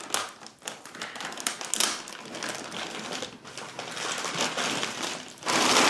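Clear plastic bag crinkling and rustling as it is pulled off a boxed desktop NAS unit, in a run of crackly rustles that grows loudest near the end.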